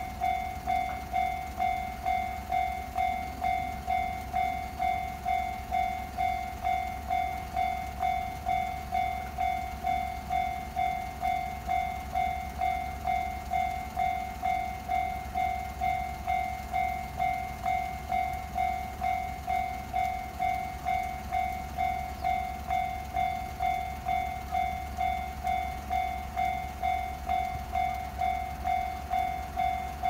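A Japanese level-crossing warning bell ringing steadily, one even, repeated 'ding' about one and a half times a second, with the barriers down to signal an approaching train.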